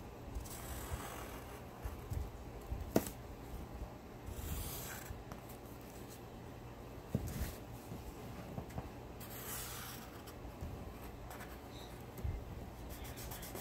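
Pencil scratching across paper on a tabletop in a few separate strokes as a shape is drawn, with a sharp tap about three seconds in and a duller knock about seven seconds in.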